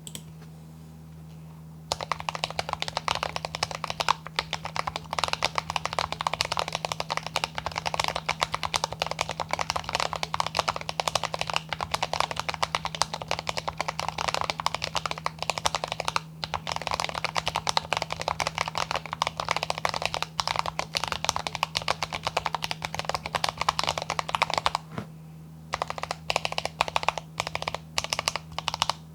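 Fast, continuous typing on a foam-dampened YMDK Wings Alice-layout mechanical keyboard with lubed AKKO CS Ocean Blue switches and PBT keycaps. It starts about two seconds in, breaks briefly near the middle, pauses again near the end, and then comes back as slower, separate keystrokes.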